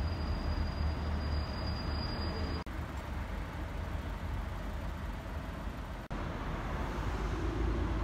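Steady road traffic noise with a heavy low rumble. It drops out for an instant twice, about two and a half and six seconds in.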